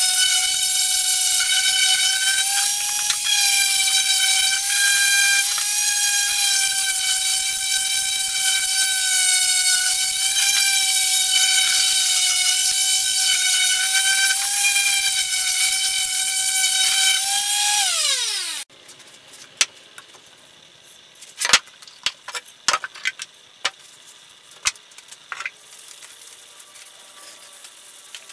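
Corded electric random orbit sander running with a steady high whine as it sands a wooden block, then dropping sharply in pitch as it is switched off. After that, quieter rubbing of a rag on wood with a few light clicks and knocks.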